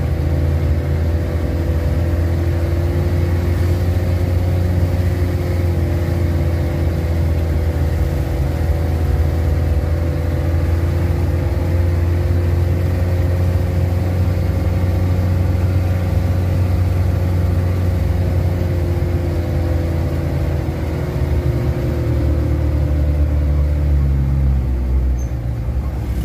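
Engine of a heavily loaded truck running at steady revs while driving, easing off slightly near the end.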